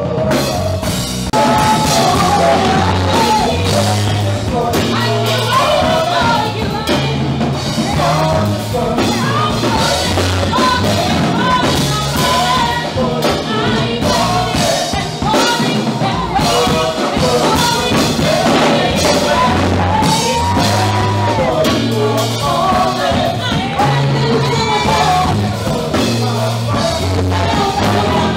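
Live band music: a drum kit and a stepping bass line under vocalists singing into microphones.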